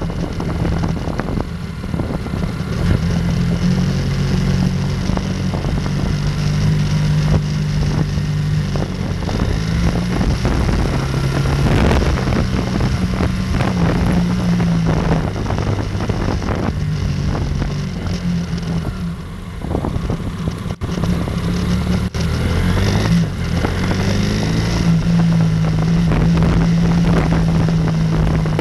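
BMW F800R's parallel-twin engine running under way, its pitch rising and falling with the throttle and climbing about two thirds of the way through. Wind noise on the microphone runs underneath.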